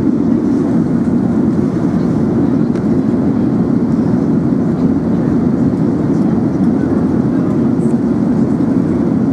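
Steady cabin drone inside an Emirates Airbus A380: a constant low rumble of engines and airflow with no changes.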